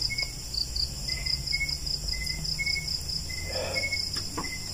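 Night insects chirping: a steady, fast-pulsing trill high up, with short chirps repeating about twice a second lower down. A faint, brief murmur comes a little past the middle.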